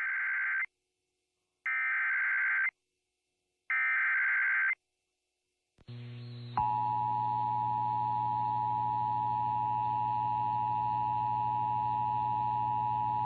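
Emergency Alert System header: three one-second bursts of digital data tones about a second apart. About six and a half seconds in, the steady two-tone attention signal begins and holds, announcing a weather warning.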